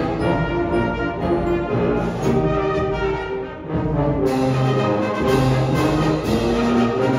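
Combined student concert band and string orchestra playing together, brass prominent over strings in sustained chords. About halfway through the music briefly thins out, then comes back in fuller with more accented notes.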